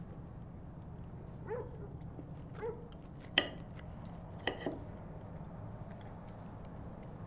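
Two short dog barks, then cutlery clinking on a plate: one sharp, ringing clink about halfway through, and two more close together a second later. A steady low hum runs underneath.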